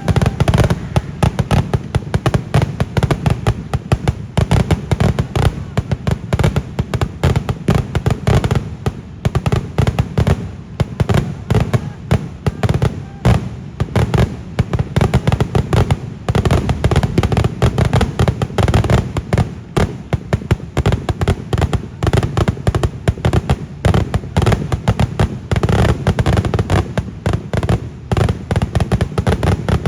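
Kerala temple-festival firecracker barrage: an unbroken, rapid chain of loud sharp bangs, many per second.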